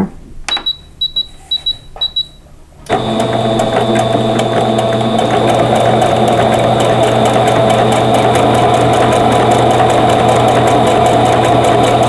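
Computerized sewing machine, a Singer 7285Q Patchwork, giving a few clicks and a series of short high beeps, then starting to sew about three seconds in and running steadily at an even rapid stitch rhythm while it sews a blanket stitch around an applique.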